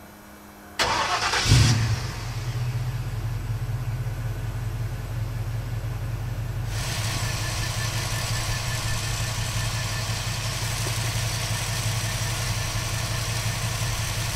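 The 351 Windsor V8 crate engine in a 1949 Ford F1 pickup is started: it cranks briefly, catches about a second and a half in with a quick rev, and then settles into a steady idle. From about seven seconds in, the idle is heard from the open engine bay and sounds brighter.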